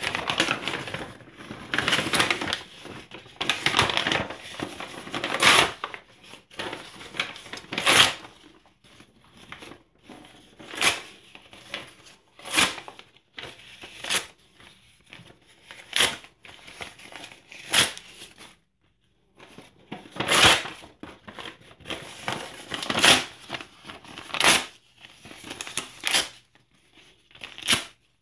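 Sheets of printed paper and newspaper handled close to the microphone: dense rustling and crinkling for the first six seconds or so, then a string of short, sharp paper sounds every second or two as sheets are sorted and torn.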